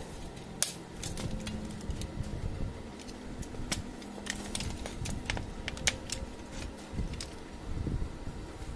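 Irregular clicks and knocks from handling the plastic housing and parts of an HP LaserJet 4515/M4555 fuser assembly, with a low rumble of hands on the unit; the sharpest click comes about half a second in.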